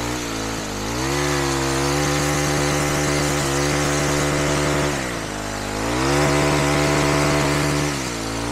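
Troy-Bilt gas trimmer running a pole hedge-trimmer attachment at high revs, cutting reeds. The throttle is eased off and opened again three times, so the engine note drops and climbs back each time.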